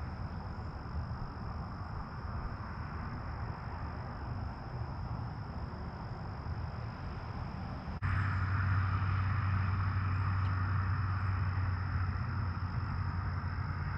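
Steady outdoor background noise: a low rumble under a continuous high-pitched drone. About eight seconds in it abruptly gets louder, with a stronger low hum.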